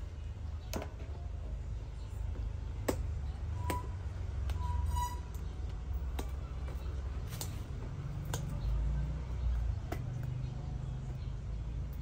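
Handling of a cardboard product box on a glass tabletop: a dozen or so scattered clicks and taps as the box and its parts are turned, opened and set down, with a brief squeak near the middle, over a steady low rumble.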